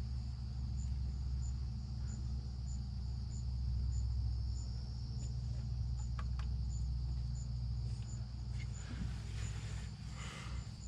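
Insect chirping in short high ticks, about one and a half a second, over a steady low rumble that eases off near the end.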